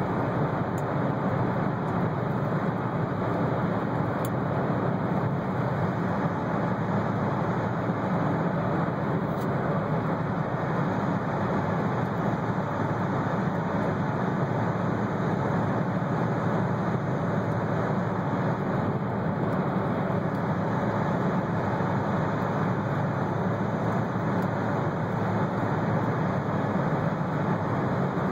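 Steady tyre and engine noise of a car driving through a long road tunnel.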